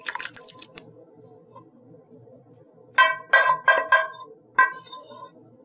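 Whey splashing briefly as curdled milk is poured from a steel pan into a cloth-lined strainer. About halfway through, the pan clinks about five times in quick succession against the strainer's rim, ringing, as it is knocked to shake out the last chena curds.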